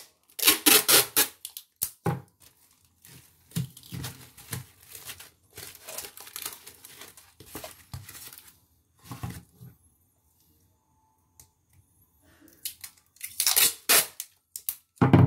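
Clear packing tape pulled off its roll in loud tearing strips around a small cardboard packet, with cardboard and plastic wrap rustling in between. A quiet stretch of a couple of seconds comes before a last loud pull of tape near the end.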